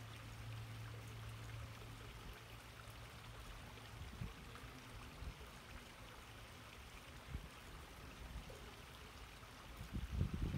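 Faint steady outdoor background noise with wind rumbling on the microphone. A faint low hum fades out after the first few seconds, and a louder gust of rumble comes in near the end.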